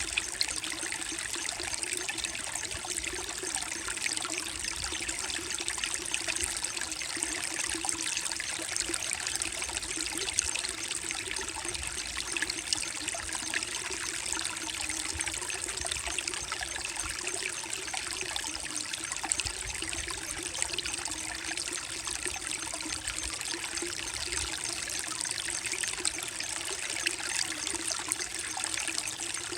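Creek water flowing over mossy rocks, a steady trickling and babbling stream sound that never lets up.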